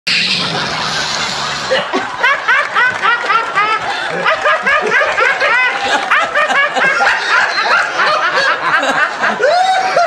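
A woman laughing hard and uncontrollably: a breathy start, then a long run of quick, high-pitched 'ha-ha' peals, about four a second.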